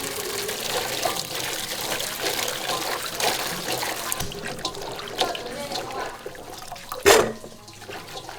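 Water running from a tap and splashing, with light clatter and a sharp knock about seven seconds in.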